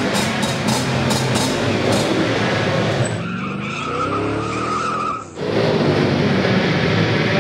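Pitbike engines running under a music track with a steady beat. About three seconds in, a short logo sound effect cuts in for two seconds, with gliding engine-like pitches and a steady high squeal, before the engines and music return.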